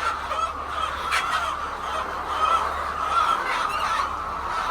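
A flock of laying hens in a poultry house clucking and calling over one another in a continuous, dense chorus.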